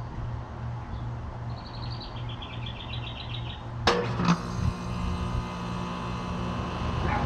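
A bird chirps a quick run of short notes. About four seconds in, a sharp click is followed by a steady hum with several tones that grows a little louder: a 2015 Trane XR14 2.5-ton central air conditioner's outdoor unit starting up.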